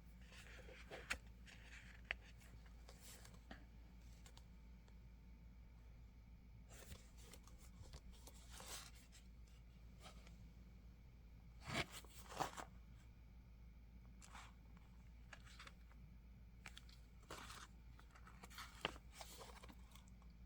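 Faint, scattered crinkling and rustling of a plastic planner cover being handled and bent, with the loudest pair of crinkles about twelve seconds in.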